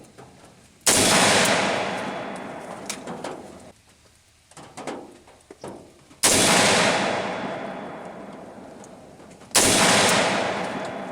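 Three rifle shots, the first about a second in and the next two about five and three seconds apart, each followed by a long rolling echo that dies away over about three seconds. The rifle is one that "thunders".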